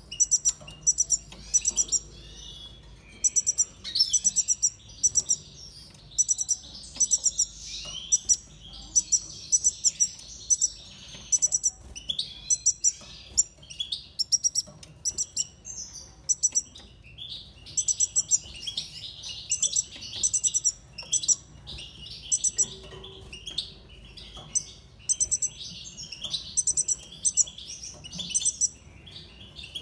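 Small caged finches chirping and twittering: loud clusters of short, very high chirps come every second or so over a softer, continuous twitter.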